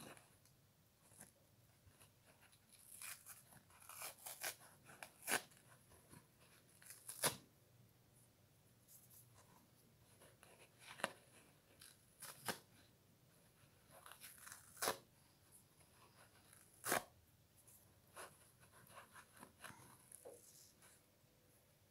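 Fingers plucking and tearing yellow foam sponge away from the green scourer layer of a kitchen scrub sponge: short, scattered rips and crackles, sometimes in small clusters, with quiet gaps of a second or more between them.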